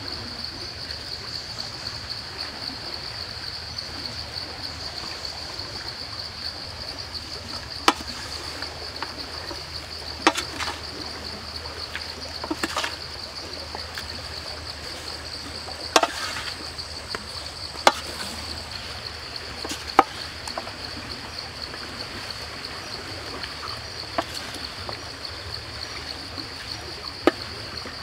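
Wooden spatula tossing a wet salad in a stainless steel pan, with sharp clacks against the metal now and then, about seven in all. Behind it a steady, high-pitched drone of insects.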